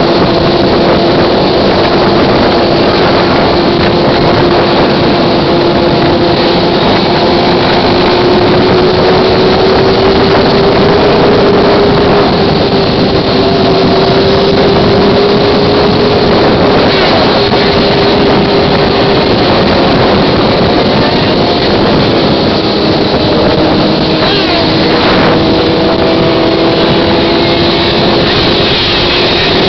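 Sport motorcycles running steadily at highway cruising speed, a strong engine drone that slowly rises and falls in pitch, under heavy wind rush on the microphone.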